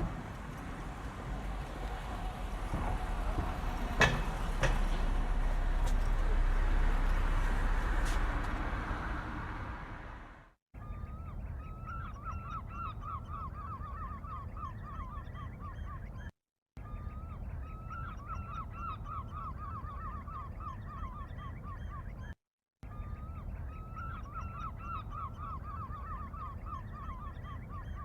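A rushing noise that swells and then fades out over about ten seconds, with a sharp click about four seconds in. Then a short recording of geese honking in quick repeated calls, played three times with brief silent gaps between.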